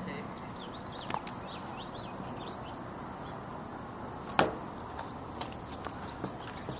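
Faint bird chirps over a steady background hiss, with one sharp knock a little past the middle.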